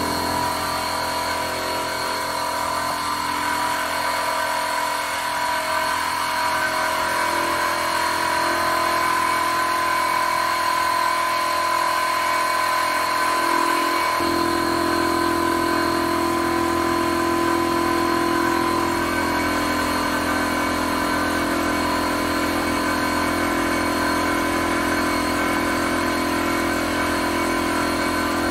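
RIDGID 6-gallon oil-free pancake air compressor running steadily, supplying air down a hookah hose to a diver's third-lung regulator. A lower hum joins about halfway through.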